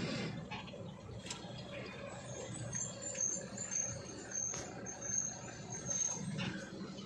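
Diesel lorry engine running while the truck drives, heard from inside the cab, with a few light knocks. A faint, high-pitched broken chirping comes in about two seconds in and fades out near the end.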